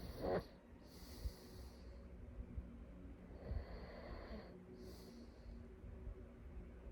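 A sleeping person snorting once right at the start, then taking slow, noisy breaths with an airy hiss, without a full snore.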